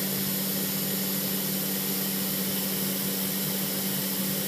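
Steady hum of a running CNC router setup: a constant low drone with an even hiss over it, unchanging throughout.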